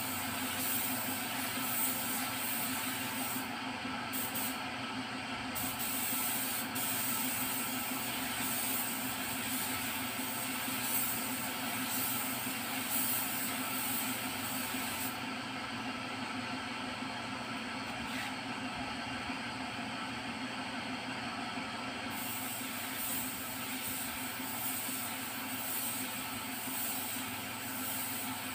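Air spray gun hissing as it sprays thinner over the edge of fresh topcoat, melting the overlap into the original paint. The hiss thins out briefly about four seconds in and again for several seconds in the middle, with a steady hum underneath.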